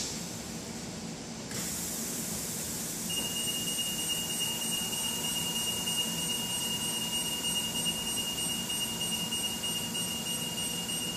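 Portable drum lift running its drum compression, with the lift's audible travel annunciator sounding a steady high-pitched tone from about three seconds in.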